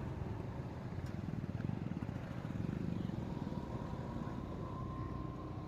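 Steady road and engine rumble of a vehicle driving along a highway, with a faint steady tone joining in about three seconds in.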